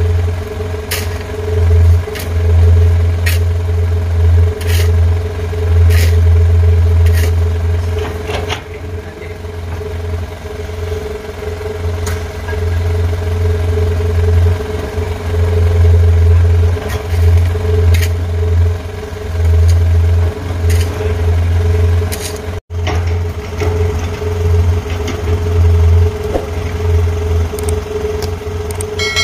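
Dump truck's diesel engine idling, a heavy low rumble that swells and fades unevenly under a steady hum. Sharp ticks come about once a second over the first several seconds.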